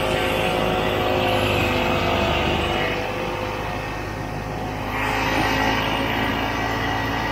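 A 1967 Ski-Doo Olympique 250 snowmobile's two-stroke engine running under way. It eases off about three seconds in and picks up again about five seconds in.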